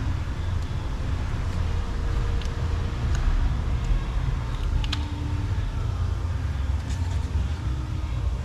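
Steady low rumble in the background with a few light clicks, the sharpest about five seconds in.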